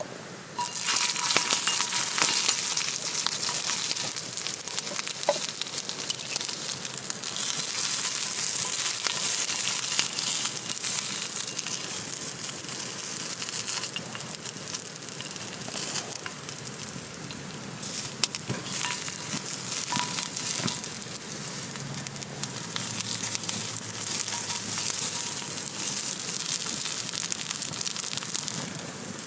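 Food sizzling and frying in a hot pan over a campfire, a dense hiss that starts suddenly about half a second in and keeps going, with scattered small pops.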